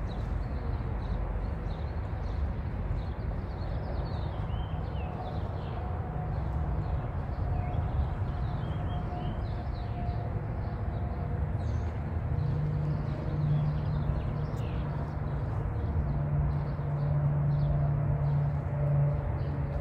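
Small birds chirping in many short, repeated calls over a steady low rumble of outdoor background noise. A low hum joins the rumble about two-thirds of the way in.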